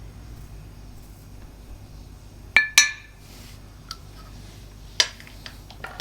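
Hard objects clinking together: two sharp clinks in quick succession a little before halfway, the first ringing briefly, then a few lighter taps and another clink near the end.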